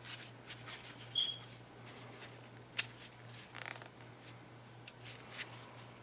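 Ontario RAT Model 1 liner-lock folding knife being opened and closed one-handed: a series of light clicks and snaps as the blade swings on its pivot and the steel liner lock engages and releases. The sharpest click comes a little under three seconds in, with a quick cluster of small clicks just after.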